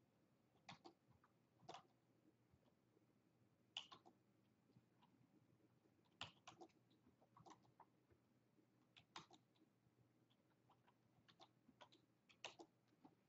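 Faint, scattered clicks of typing on a computer keyboard, in short irregular bursts with pauses between them.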